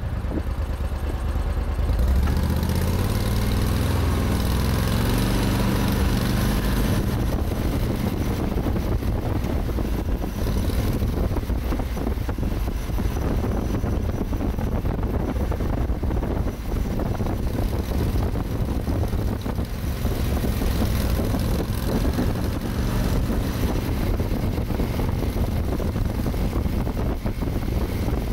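Argo 6x6 amphibious ATV's engine running as it drives along a rough trail, its pitch rising in steps over the first few seconds, then holding steady, with many small knocks throughout.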